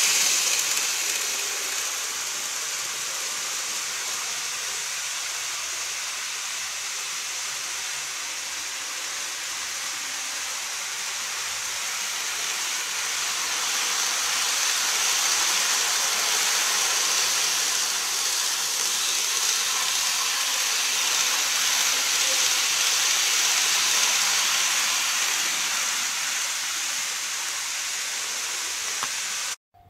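Micro Ace N-gauge model train running on the layout's track: a steady hiss that fades as the train draws away, swells again as a train passes about halfway through, eases off, and cuts off at the very end.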